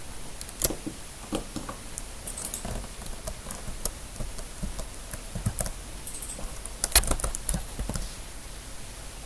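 Typing on a computer keyboard: irregular keystroke clicks, with a louder flurry of keys about seven seconds in.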